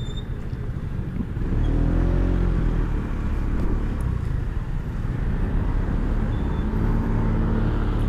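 Rusi RFI175 scooter's engine running with low rumble while riding slowly in traffic; its pitch swells briefly about two seconds in.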